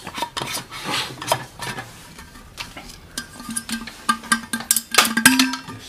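Irregular clicks and light knocks from flasks and travel mugs being handled, with music playing.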